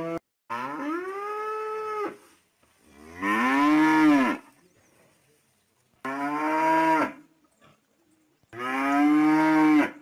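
Cattle mooing: four long, drawn-out moos, each about one to one and a half seconds, with the pitch rising and then falling, separated by short silences. The second and fourth moos are louder.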